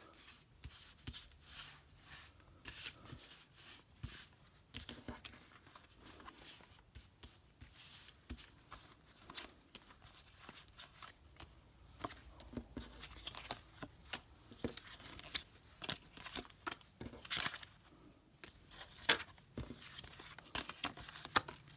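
Pokémon trading cards being handled and laid down on a wooden table: irregular light taps, flicks and slides of card stock.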